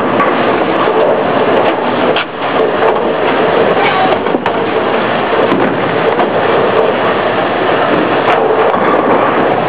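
Steady din of a busy bowling alley: bowling balls rolling down the lanes and pins clattering, with many sharp knocks scattered through it.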